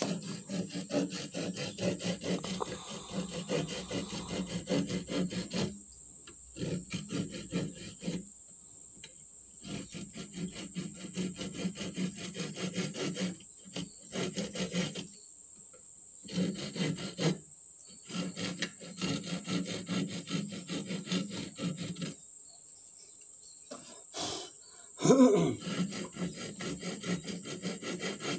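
Small hand saw cutting a slot into a small wooden board, in quick back-and-forth strokes that come in several bouts with short pauses between them. About 25 seconds in, a brief louder sound with a falling pitch stands out over the sawing.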